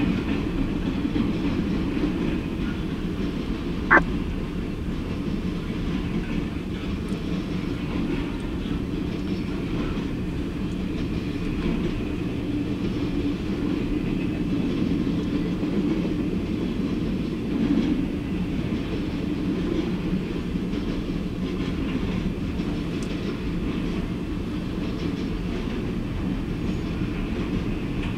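Freight train of piggyback trailers on flatcars rolling past, a steady low rumble of wheels on rail. A single sharp click about four seconds in.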